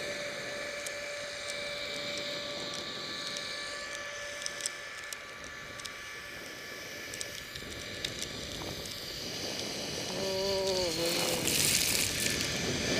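Skis sliding and scraping over packed snow, heard with wind noise on a camera worn by the skier; a short wavering pitched sound comes about ten seconds in, and the scraping hiss grows louder near the end.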